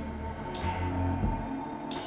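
Instrumental music: sustained low tones, with a sudden splash of high noise about half a second in that fades away, and another near the end.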